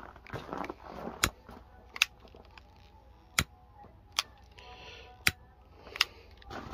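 Push-button igniter of a long-neck utility lighter clicking six times, about once a second.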